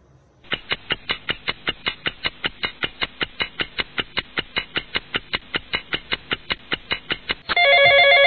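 Mobile phone ringtone: rapid electronic beeps pulsing about five times a second, then near the end a steady chord-like tone.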